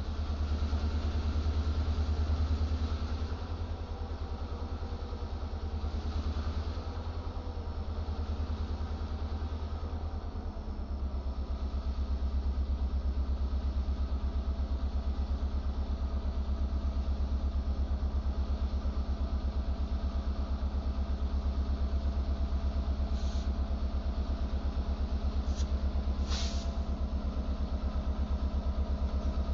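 EMD GP38-2 diesel-electric locomotive's 16-cylinder two-stroke diesel running at low speed, a deep pulsing rumble that grows louder about a third of the way in as the locomotive draws nearer. A few brief high squeaks near the end.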